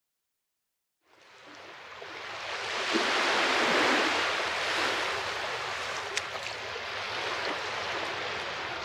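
Sea waves washing on a shore, fading in from silence about a second in, one wave swelling to its loudest around three to four seconds in, then a steady wash with a few faint clicks.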